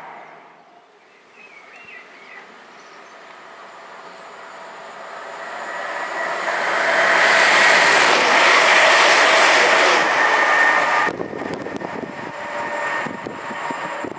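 A Class 350 Desiro electric multiple unit passes on the main line. Its rush builds over several seconds to a loud peak with a high steady whine over it, then cuts off suddenly about eleven seconds in as the train clears, leaving a fading rattle of wheels on rail.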